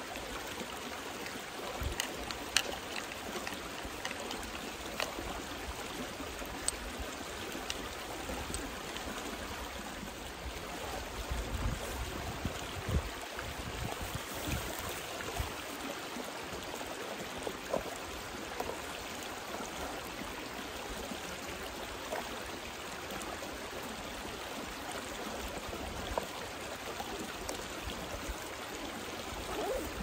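Mountain stream rushing steadily, with a few faint clicks and rustles of gear being handled over it.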